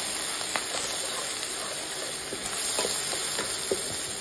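Finely chopped cabbage and capsicum sizzling in hot oil in a stainless steel pan while a spatula stirs them, with scattered small pops and scrapes over a steady hiss.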